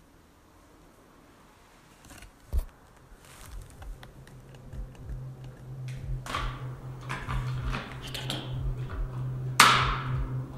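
Keys jangling: scattered metallic clinks and clicks that grow busier after the first few seconds. A sharp, louder knock or step comes near the end.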